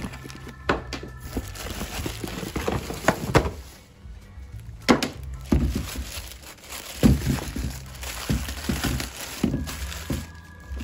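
Knocks, thuds and rustling as a rotary polisher and its power cord are handled and lifted out of a cardboard box and a plastic bag, over background music.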